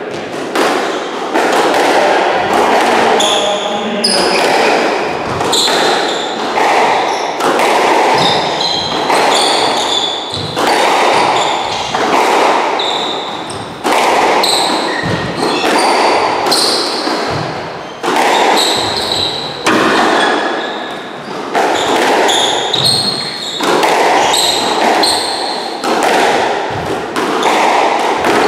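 Squash rally: a steady exchange of racket strikes and the ball hitting the front wall and glass walls, about one impact a second, each echoing around the court. Shoes give short high squeaks on the hardwood floor between the shots.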